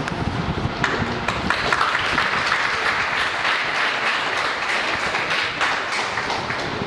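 Audience applauding, the clapping picking up about a second in and carrying on steadily.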